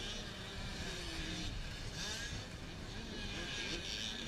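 Several distant motocross dirt bikes running around the track, their engines buzzing and rising and falling in pitch as the riders rev through the jumps and turns.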